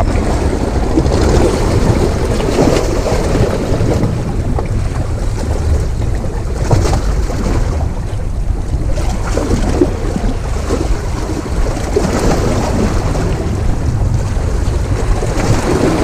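Wind buffeting the microphone over the steady wash of rough sea waves breaking against the rocks below.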